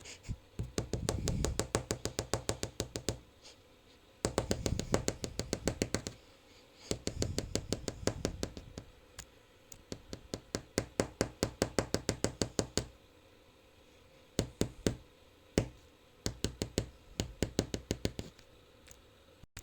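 Rapid runs of knocks, about nine a second, in bursts of two to three seconds, then scattered single taps near the end. It is a made-up sound effect of an aye-aye tapping to forage.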